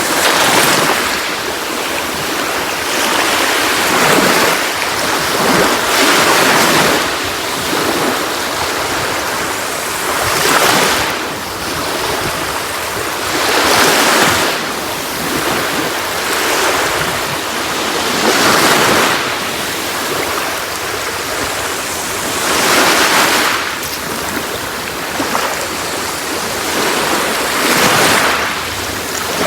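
Sea waves washing onto a shore: a steady surf hiss that swells as each wave breaks and fades as it draws back, about every four seconds.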